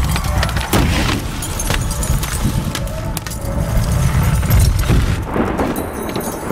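Film sound effects of an overturned car crashing and scraping along the road on its roof: repeated metal impacts and scraping over a heavy low rumble, with broken glass showering and tinkling.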